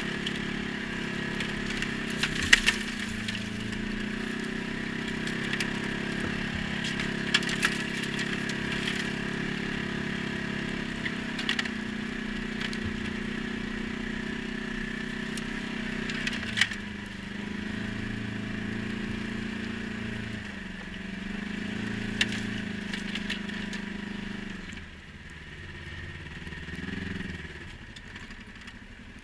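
ATV engine running under way, its note rising and falling with the throttle, with a few sharp clacks every several seconds. The engine eases off and gets quieter near the end.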